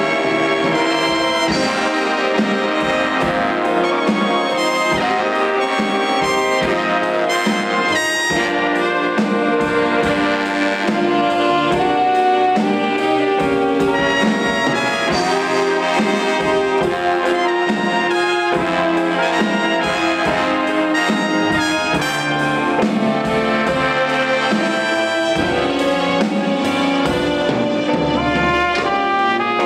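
Big band playing live: trumpet, trombone and saxophone sections over a rhythm section of drum kit and double bass.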